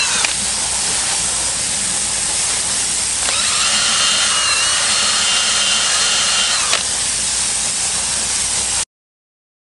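Cordless drill with a scrubbing-brush attachment spinning against a wheel rim. Its high, steady motor whine starts about three seconds in and stops near seven seconds, over the continuous hiss of a garden hose spraying water. The sound cuts off abruptly near the end.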